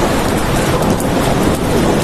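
Steady heavy rain: a dense, even rush with scattered drop ticks and a strong low rumble underneath.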